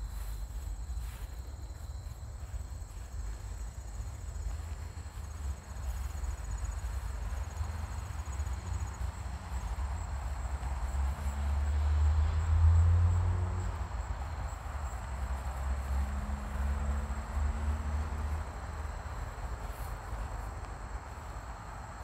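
Insects trilling steadily in the background, with a low rumble that swells to its loudest about halfway through and rises again a few seconds later.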